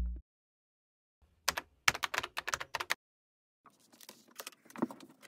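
Keyboard typing sound effect, about a dozen quick key clicks over a second and a half, as if text is typed into a search bar. From about four seconds in, faint taps and rustles of hands handling a ring binder with plastic pockets.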